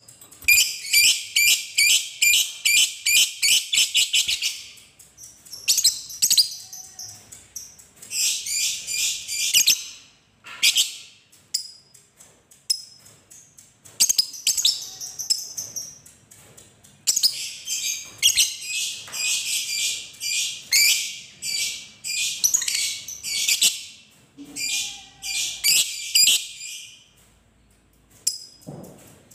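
Fischer's lovebird giving its long, rapid chattering trill (the 'ngekek' call): shrill notes repeated about ten times a second, in two long runs of several seconds with shorter bursts between.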